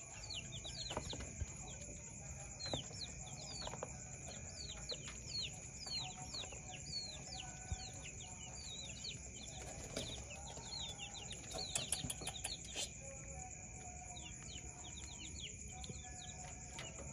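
Many rapid, high-pitched chirps of small birds, each sliding downward, often overlapping and repeating without a break, over a faint steady high whine. A few light clicks come about two-thirds of the way in.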